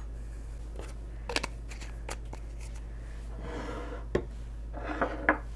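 A few light knocks and rustles as a small vanilla bottle and a glass measuring cup are handled and set down on a wooden countertop, the sharpest knock about four seconds in.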